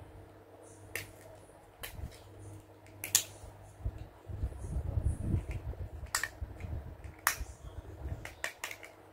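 Small plastic toy locker doors snapping open and shut under fingers: a series of sharp plastic clicks, the loudest about three seconds in and a quick cluster near the end, with soft rubbing and handling noise of the toy in the hands through the middle.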